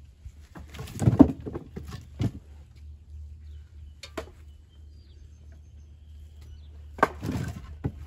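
Split oak firewood knocking and clattering as pieces are stacked by hand in a wire-caged tote: a handful of separate wooden clunks, the loudest about a second in and again about seven seconds in.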